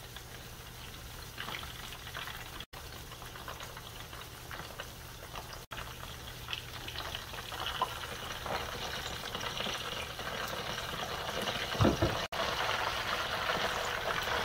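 Chicken quarters deep-frying in hot oil in a skillet: a steady crackling sizzle that grows louder over the second half, with a brief knock about twelve seconds in.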